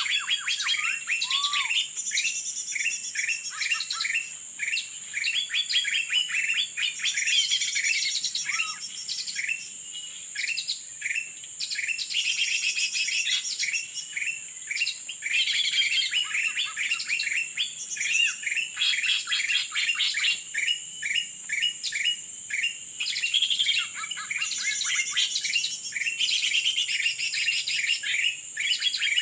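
Dense, continuous bird chirping and calling, many quick chirps in rapid runs with brief pauses, over a steady high-pitched hiss.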